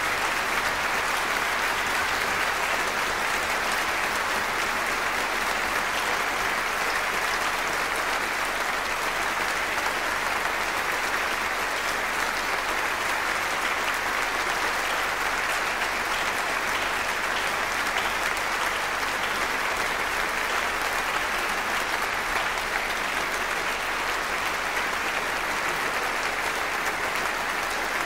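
Audience applauding in a concert hall, a steady, unbroken clapping.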